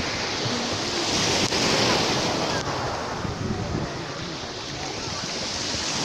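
Sea surf washing steadily at the shore, with wind buffeting the microphone.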